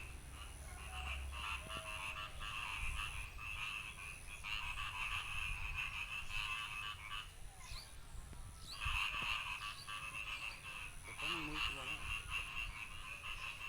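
Frogs calling in a dense chorus of rapid, pulsed croaks, with a brief lull about eight seconds in.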